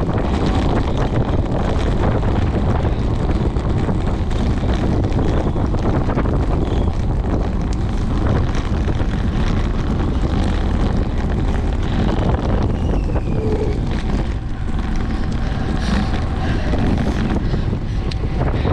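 Steady wind rumble on the microphone of a camera riding on a moving road bicycle.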